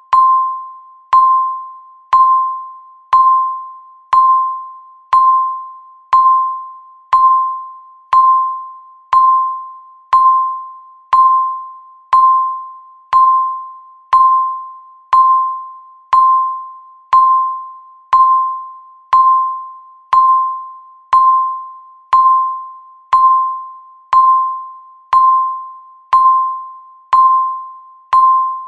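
Electronic countdown-timer beep, once every second. Each beep is a single mid-pitched tone that starts sharply and fades away before the next.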